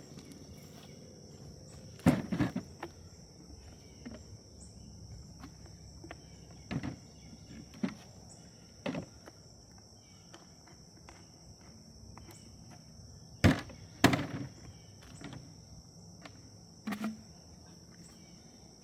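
Separate knocks and clacks of plastic leaf-blower tube sections being handled and forced together, the loudest about two seconds in and a close pair near fourteen seconds, over the steady high chirring of crickets.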